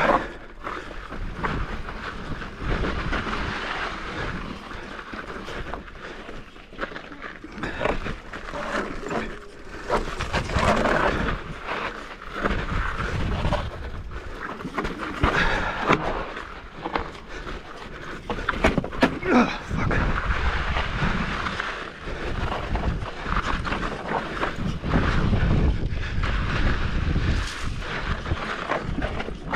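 Mountain bike rattling and clunking over rock ledges on a rough, rocky descent: irregular knocks and chain and frame rattle, over a steady low rumble of wind on the microphone.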